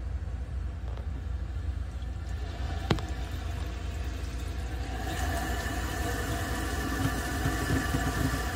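Water running at a leaking sink, starting about five seconds in as a steady hiss with ringing tones, over a low rumble. One sharp click sounds about three seconds in.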